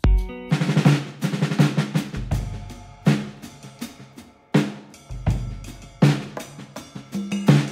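Background music: a new track opens with a drum kit, kick and snare hits over a bass line, in a steady beat.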